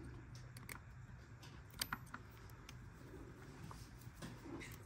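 Faint clicks and light rattling of plastic battery-cable connectors being handled and plugged into a dual battery combiner box, with a few small clicks close together about two seconds in.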